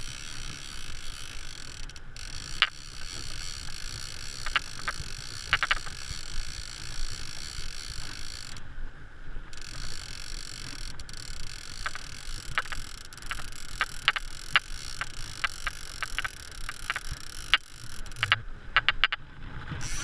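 Fly reel clicking in irregular runs as the angler's hand turns it, winding in line, over the steady rush of river water.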